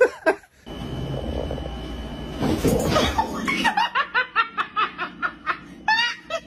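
A person laughing hard in quick repeated bursts, about five a second, starting about three and a half seconds in. Before the laughter there is a steady low rumble with a thin high tone, and a brief noisy burst about two and a half seconds in.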